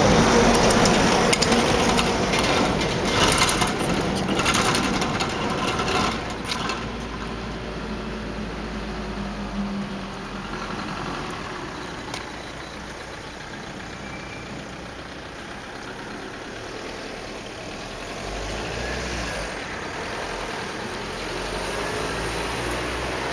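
Motor vehicle engine running, loudest in the first six seconds or so and then dropping away to a quieter steady rumble.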